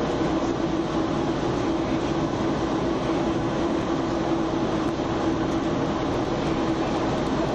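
Metrolink passenger train in motion, heard from inside the coach: a steady rumble and rushing noise with a constant hum under it.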